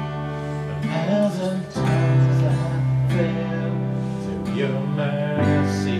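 Instrumental intro of a worship song on strummed acoustic guitar, changing chords every second or two.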